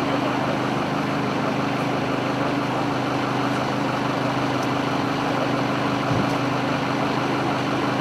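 A large engine idling steadily, a constant low hum with no change in pace.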